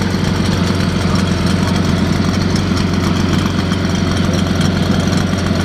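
Custom multi-cylinder moped engine running steadily at a fast idle, loud and unbroken, with an even rapid pulsing.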